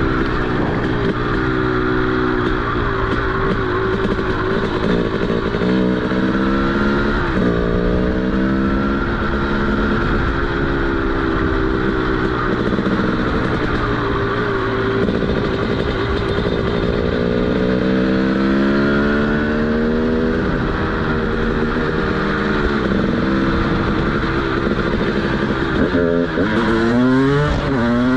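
TM SMR 300 two-stroke supermoto engine running through a DBR exhaust. Its pitch climbs and falls back several times, with quicker rises and drops near the end.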